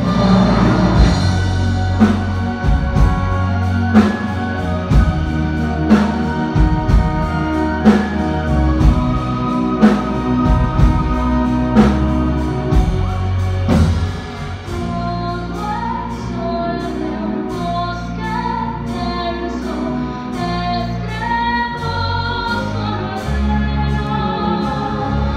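A woman singing a big ballad with orchestra, with heavy drum and cymbal accents about every two seconds. About fourteen seconds in, the accompaniment drops back and the voice carries on more softly.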